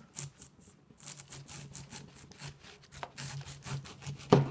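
Serrated knife sawing back and forth through a pineapple just below its leafy crown, a quick rasping stroke several times a second. A single loud knock on the wooden cutting board near the end.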